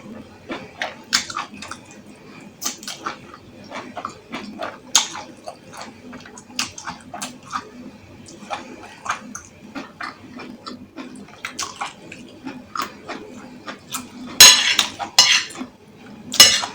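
Close-miked eating sounds of someone chewing goat shaki (tripe): many small wet mouth clicks and smacks, with a spoon clinking against a bowl. A louder run of cutlery clatter comes near the end.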